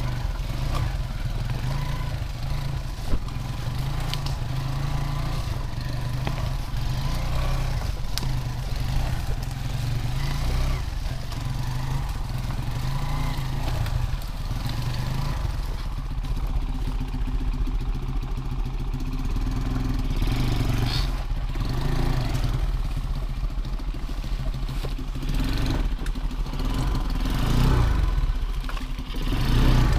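Small engine of a homemade all-wheel-drive off-road motorcycle running at low, steady revs while crawling through thick vegetation, with rattling clatter from the machine. Near the end it gets louder and the revs rise briefly.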